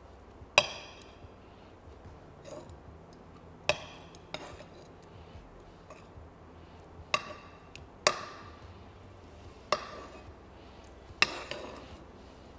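A metal spoon clinking against the sauté pan and blender jug as cooked broccoli is scooped across: about seven sharp knocks at irregular intervals, each with a brief ring.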